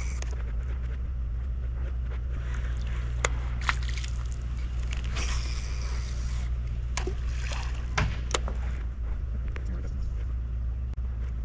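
Lure being retrieved through shallow water: light sloshing and splashing with a few sharp clicks, over a steady low rumble.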